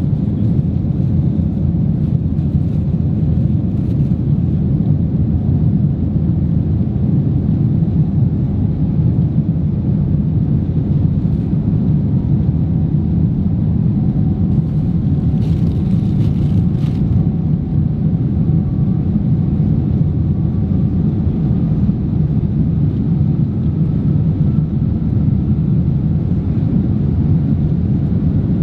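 Boeing 787-10 taxiing, heard inside the cabin: a steady low rumble of the engines and the rolling wheels.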